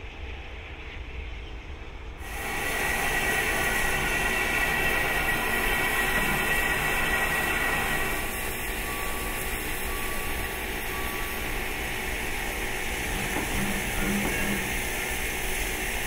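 Steam locomotive CFL 5519 at close range: a quiet rumble at first, then, about two seconds in, an abrupt switch to a louder, steady hiss of steam over the engine's mechanical noise.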